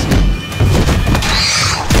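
Film action soundtrack: dramatic music under heavy crashes and thuds, with several sharp impacts.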